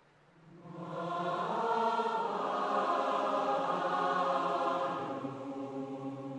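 Choral music: voices singing long held chords, swelling in from near quiet just under a second in.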